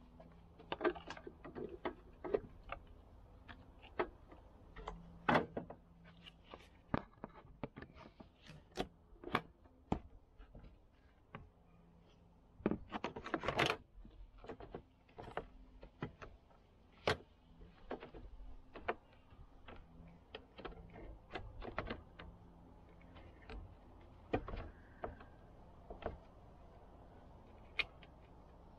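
Hard plastic engine-bay covers being handled and pushed into place over the fuse box and battery, giving an irregular string of sharp clicks and knocks, busiest about halfway through, over a faint low hum.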